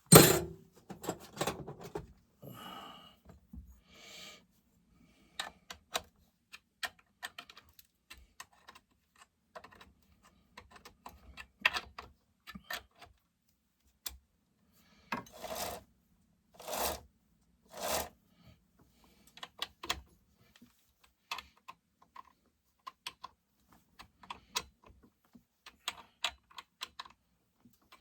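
Scattered small clicks and knocks of metal chainsaw parts and hand tools being handled during bench assembly. There are three short scrapes about halfway through.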